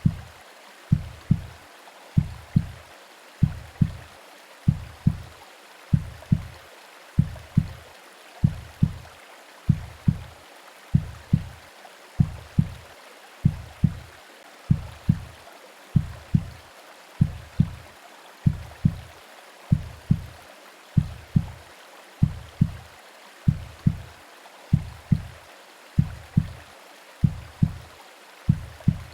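Womb-sound recording of a slow heartbeat: low double thumps (lub-dub), evenly spaced a little over a second apart, over a steady white-noise hiss.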